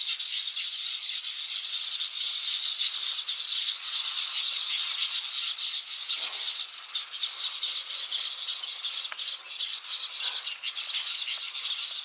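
Weaver birds chattering together: a steady, dense, high sizzling rattle of many rapid notes, with a couple of short lower calls about six and ten seconds in.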